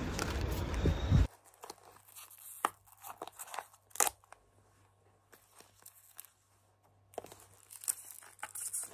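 Street noise that cuts off about a second in, then packaging being opened by hand: scattered crackles and tearing of plastic wrap and a cardboard box, sparse in the middle and busier near the end.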